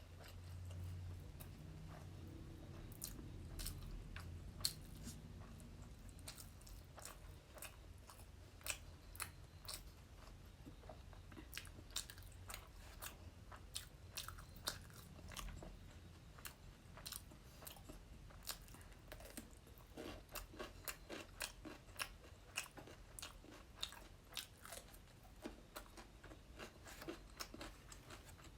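A person chewing and biting food close to the microphone, with many short crunching clicks and mouth sounds scattered irregularly throughout.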